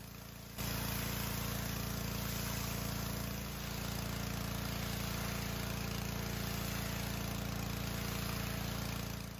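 Dewalt 3300 psi gas pressure washer running steadily under load while its wand, fitted with the green tip, sprays water onto a rug. The hiss of the spray sits over the engine hum, and the sound steps up louder about half a second in.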